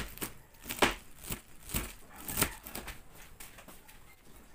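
Kitchen knife slicing through a raw cabbage onto a cutting board: a run of crisp cuts about two a second, thinning out and fainter after about three seconds.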